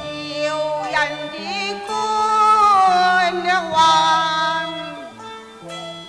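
Cantonese opera music: the traditional accompanying ensemble plays a sliding melody with wavering vibrato, led by a bowed string, over sustained lower notes. The melody is loudest in the middle.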